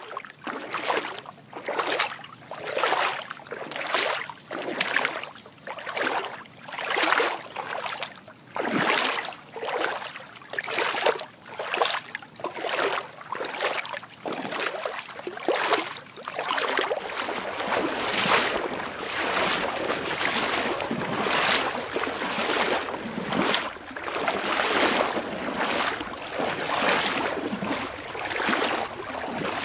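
Water noise washing in rhythmic swells, about one a second, becoming a more continuous rush about halfway through.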